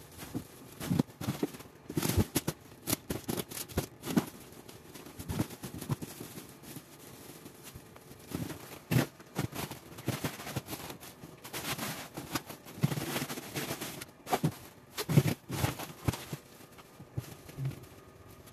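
Plastic bags crinkling and rustling in irregular bursts of sharp crackles as bagged food is handled and packed into a chest freezer.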